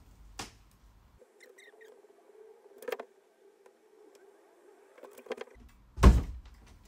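Fast-forwarded pencil marking a line on the edge of a wooden door: light scratching and a few small clicks. A loud thump comes about six seconds in.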